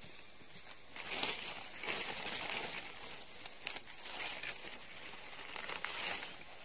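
Dry leaf litter rustling and crackling in irregular spurts as hands reach through it and pull up a mushroom, over a steady high-pitched insect drone.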